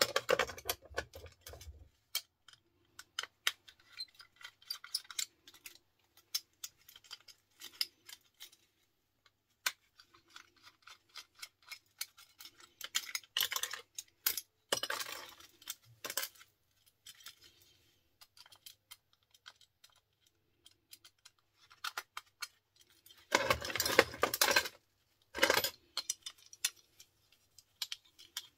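Small plastic and metal parts of electrical fittings clicking and clattering as they are unscrewed and pulled apart with a screwdriver for their brass and copper. Scattered sharp clicks throughout, with louder bursts of rattling about halfway through and again near the end.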